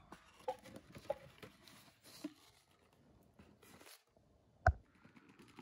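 Faint handling of cardboard model train boxes: light rustling and sliding of the cardboard, with a few small scrapes and one sharp knock about four and a half seconds in.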